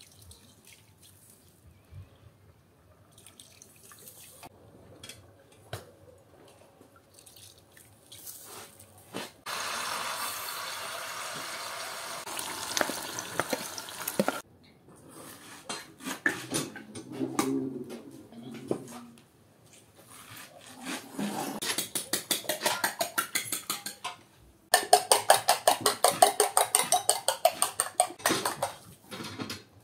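Vegetables sizzling in hot oil in a frying pan, a steady hiss for several seconds. Later a fork beats eggs in a glass bowl with fast, rhythmic clinking strokes, the loudest sound.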